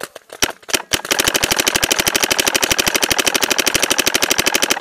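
Paintball marker firing close by: a few single shots, then about a second in a long, rapid, evenly spaced stream of more than ten shots a second, as from an electronic marker on full-auto, which stops abruptly near the end.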